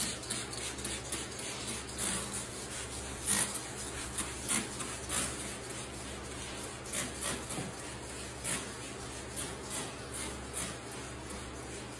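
Short, irregular rubbing and hissing strokes as a hand wipes over the bare wooden desktop, over a steady low hum.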